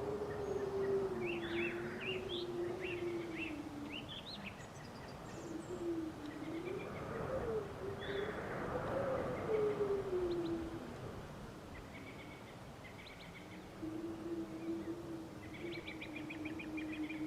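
Cows mooing: three long, low moos, the middle one rising and falling in pitch, with small birds chirping in the background.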